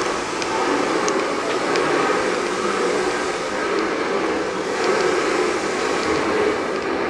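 Steady background noise of a large indoor engine hall, with a few faint clicks.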